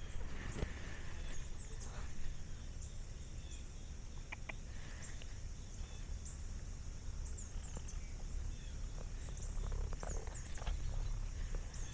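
Countryside ambience: a steady, faint high drone with a few brief groups of very high chirps, over a low rumble.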